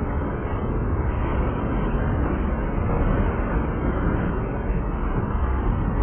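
Covered hopper cars of a freight train rolling past: a steady rumble of steel wheels on the rails.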